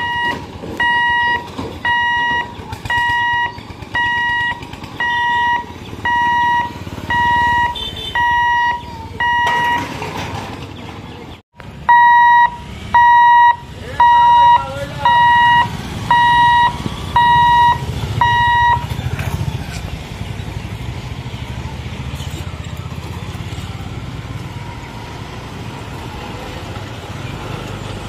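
Level-crossing warning beeper sounding a repeated electronic beep, a little more than one a second, the signal that the boom barrier is closing for a train. Near the middle there is a short break, then it beeps again for about seven seconds and stops, leaving the steady rumble of motorbikes, scooters and other road traffic crossing.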